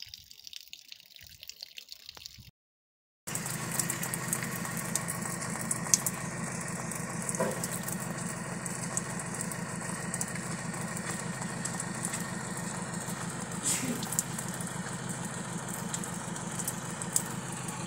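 Faint rain dripping, then after a brief dropout a car engine idling steadily close by, with rain noise behind it.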